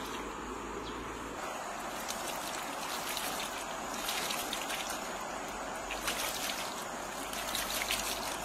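Water pouring from a bamboo tube and splashing onto raw frogs and melon pieces on banana leaves: a steady trickle, with louder spattering from about four seconds in.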